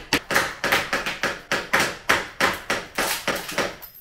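Hammer driving a metal chisel behind glass mosaic wall tiles to knock them off: a rapid, even run of sharp blows, about five a second, that stops just before the end.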